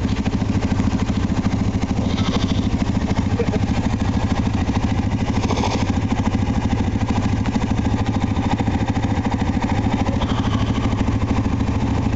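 Yamaha Grizzly 700 ATV's single-cylinder four-stroke engine idling steadily, an even low pulsing at a constant level.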